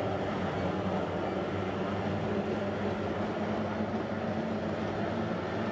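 Steady drone of kyotei racing boats' two-stroke outboard engines running on the water.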